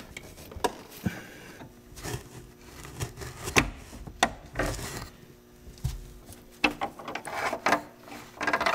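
Scattered light clicks, knocks and rubbing as a gloved hand works the lower retaining clip off the transmission cooler line at the radiator of a Volvo 850.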